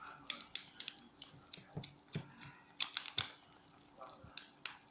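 A utensil clicking and tapping irregularly against a container as glue and water are stirred together for slime, with a few louder knocks about two to three seconds in.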